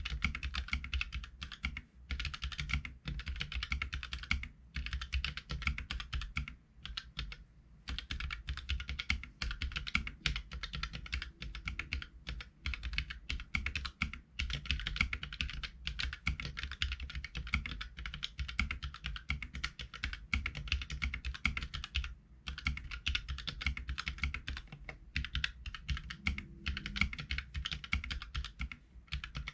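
Continuous fast typing on a Keychron K3 mechanical keyboard with low-profile Gateron Red linear switches: a dense run of loud key clacks, with short pauses about a quarter of the way in and about three quarters through.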